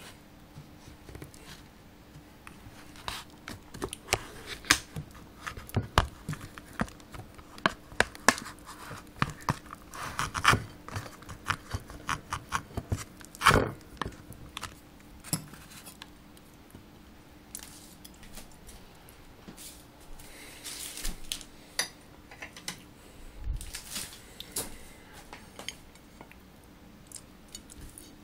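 Knife cutting and prying into a frozen chocolate and peanut butter cup in an aluminium foil pie pan: irregular scrapes and sharp clicks of metal on foil, busiest in the first half and sparser later. A faint steady hum runs underneath.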